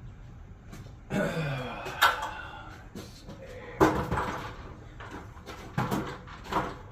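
Several sharp knocks and clatters of wood and tools being handled while framing with 2x4 lumber, about five spread over a few seconds.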